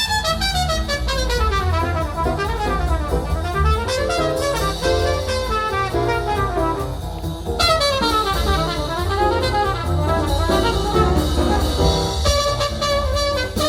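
Jazz recording with horns and drums played back from a CD on a hi-fi system, with fast runs sweeping up and down in pitch.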